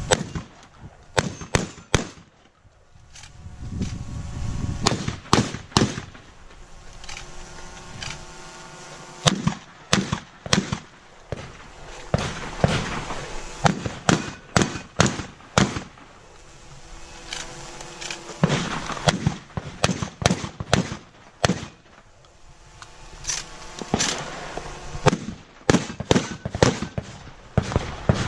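Shotgun fired repeatedly in quick strings, dozens of sharp reports, some coming in rapid pairs and clusters with short gaps between strings.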